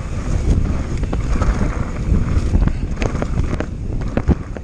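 Pivot Switchblade 27.5+ mountain bike riding fast down a loose dirt trail: wind buffeting the microphone over the constant rumble of the tyres, with several sharp knocks and rattles from the bike over bumps.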